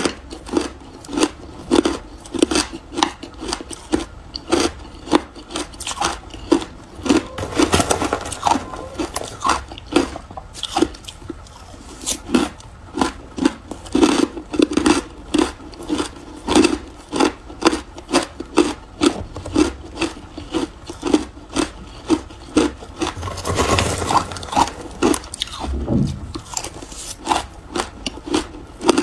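Close-up crunching of a mouthful of shaved and crushed ice being chewed, with a steady run of crisp crunches at about two to three a second.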